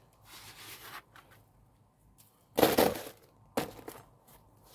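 A brief gritty scrape and crunch of lime mortar being worked with a trowel, followed about a second later by one sharp click.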